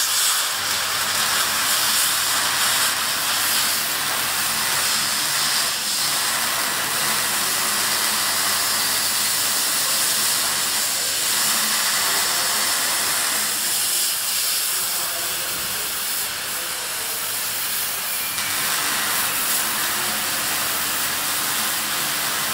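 Oxy-fuel cutting torch hissing steadily as its flame and oxygen jet cut through steel plate.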